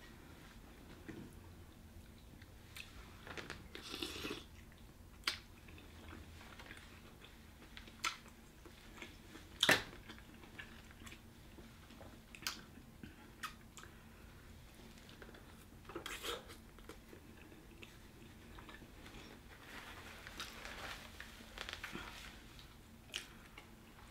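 Eating sounds: chewing, biting and wet mouth smacks while eating seafood in sauce, with scattered sharp clicks, the loudest about ten seconds in.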